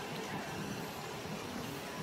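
Steady background noise with a faint hum and no distinct events.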